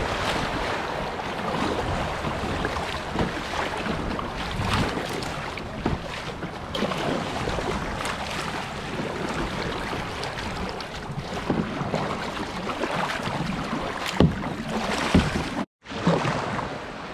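Rough river water rushing around a kayak, with the paddle blades splashing in on each stroke. Near the end the sound cuts out for a moment and returns quieter.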